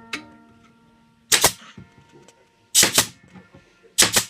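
Staple gun firing staples into a wooden hive frame: sharp snaps, mostly in quick pairs, three times after a single snap near the start. A ringing metallic tone fades away over the first second or so.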